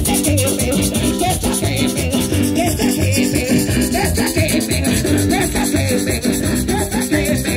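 Live Pentecostal coro played through loudspeakers: a woman singing into a microphone over keyboard and a steady beat, with a fast metal shaker and a tambourine keeping a dense rattling rhythm.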